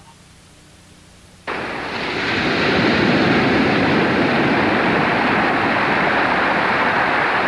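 Sea surf breaking against a rocky shore: a dense, steady rush of water that cuts in suddenly about a second and a half in, after a brief quiet gap.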